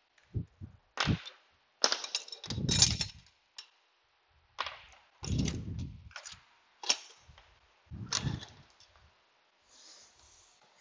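Metal sockets and hand tools clinking and clattering as they are handled and set down: a string of sharp clicks and clanks with short pauses between.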